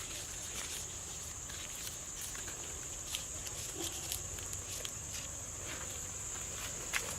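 Steady high-pitched insect drone, with scattered faint clicks and taps.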